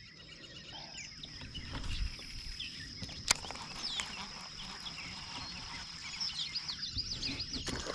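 Birds chirping over a steady high-pitched insect drone, with one sharp click about three seconds in.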